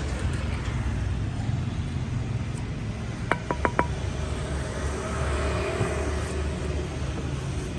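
Steady low outdoor rumble of distant traffic. About halfway through, four quick light metallic pings as fingers tap the 10-inch, 120-tooth Dekton circular saw blade.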